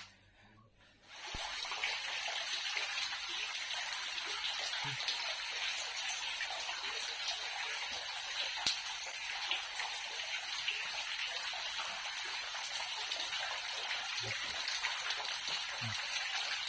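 Spring water falling in thin streams from a limestone cave ceiling and splashing into the water below: a steady patter and splash that starts suddenly about a second in.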